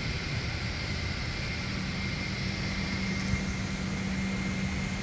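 Airliner cabin noise: a steady rush of air with a low hum and a faint high whine.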